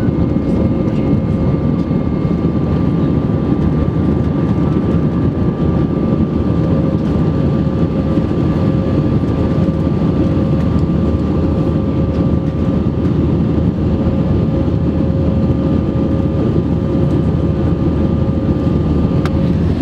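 Steady rumble of an Airbus A320's jet engines and rushing air as heard from inside the cabin during the climb after take-off, with a steady whine held on one pitch.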